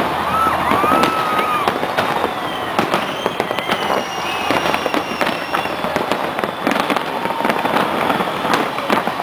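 Aerial fireworks going off in a dense barrage of rapid crackles and pops, with a few thin whistles gliding up and down in the first few seconds.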